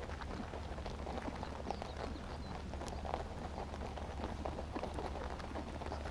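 A dense, steady crackle of many rabbits close by, nibbling and chewing as they feed and shuffling in the grass, over a steady low hum.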